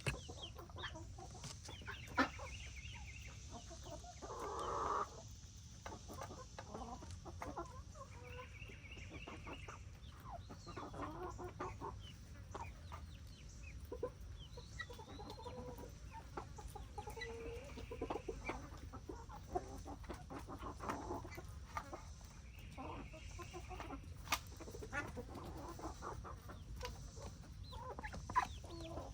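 Chickens clucking softly, with scattered light clicks and one louder drawn-out call about four seconds in.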